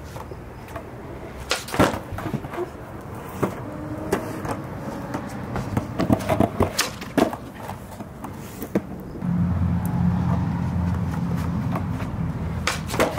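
Skateboard on concrete: sharp clacks and knocks of the deck and wheels popping and landing during ollie attempts onto a curb, several in a row in the middle and a loud pair near the end. A steady low rumble sets in about two-thirds of the way through.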